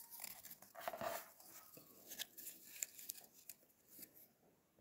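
Faint rustling and light clicks of cord being wound by hand around a star shape, the cord rubbing and tapping against its points. The sounds thin out and nearly stop near the end.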